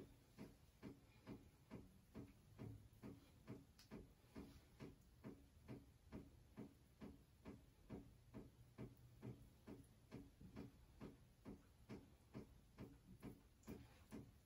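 Faint, even ticking, about three ticks a second, steady throughout.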